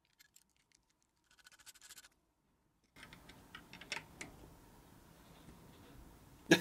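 Faint handling noise as a propeller on a metal balancing shaft with cone adapters is set into a prop balancer: light scratching about a second and a half in, then from about three seconds soft rubbing and a few sharp small clicks near four seconds.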